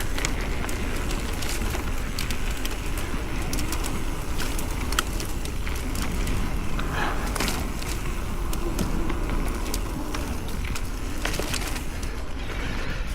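Mountain bike rolling along a dirt trail: steady tyre noise on the ground, with many small clicks and rattles from the bike and a low wind rumble on the microphone.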